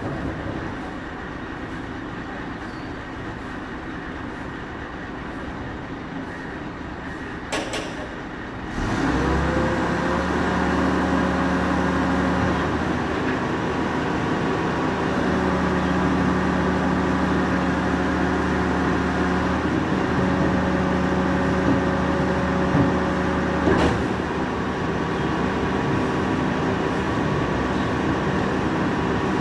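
Rear-loader garbage compactor truck running at idle, then about nine seconds in the engine picks up to a steady higher note as the hydraulic packer is run. There are a couple of sharp knocks as bins are tipped into the hopper.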